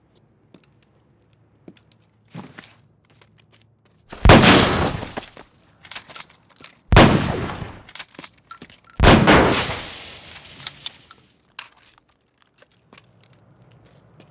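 Three loud gunshots a few seconds apart, each trailing off in a long echoing tail, with breaking glass in the blasts and small clicks and knocks between them.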